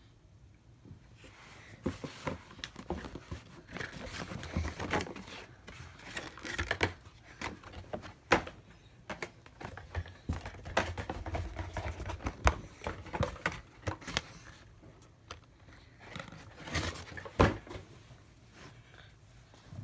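A shoe box being unboxed by hand: paper and cardboard rustling and crinkling, broken by scattered sharp taps and knocks, the loudest three spread across the middle and near the end.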